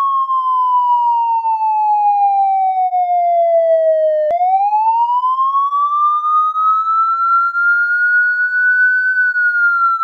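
Police siren in a slow wail: a single clear tone glides slowly down for about four seconds, breaks with a brief click, then rises for about five seconds and starts to fall again near the end.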